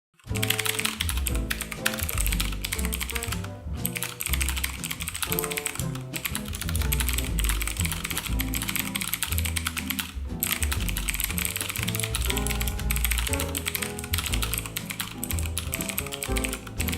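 Rapid typing on a mechanical keyboard, the Cooler Master MasterKeys MK750 with clicky Cherry MX Blue switches, a dense run of key clicks over relaxed lounge background music with a steady bass line. The typing and music drop out briefly twice, a few seconds in and about ten seconds in.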